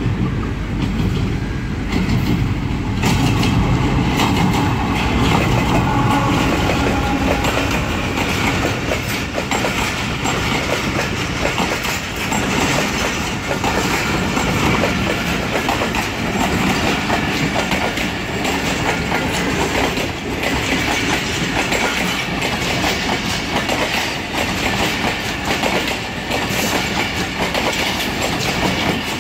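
A passenger train rolling past, its wheels clattering steadily over the rail joints.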